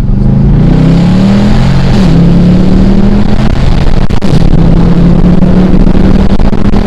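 Dodge Charger R/T's V8, fitted with a new cold air intake, pulling hard under full throttle: the engine note climbs, drops at an upshift about two seconds in, then climbs again.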